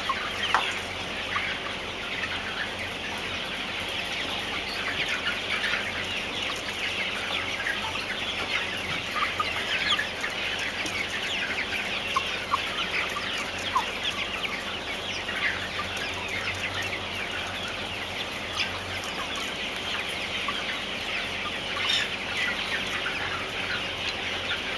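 A large flock of young white Novogen parent-stock hens clucking and chattering together: many overlapping short calls at a steady level.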